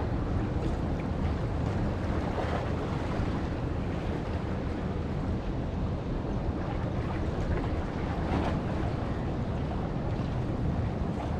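Wind buffeting the microphone over sea waves washing against breakwater rocks, with a couple of waves swelling in.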